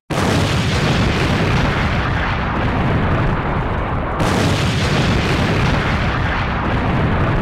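Huge explosion blasts: a loud, continuous deep rumble of blast noise with no break, and a second blast coming in about four seconds in.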